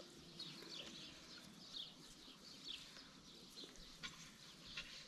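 Near-quiet outdoor ambience with faint, high chirps of small birds, a short call about once a second.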